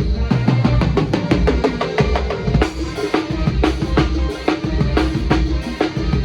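Sonor drum kit with Orion cymbals played at a sound check: dense, regular bass drum, snare and cymbal strikes.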